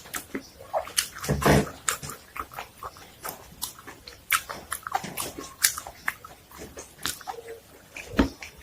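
Close-miked eating: irregular crunching, chewing and wet mouth clicks, with a louder bite about a second and a half in and another near the end.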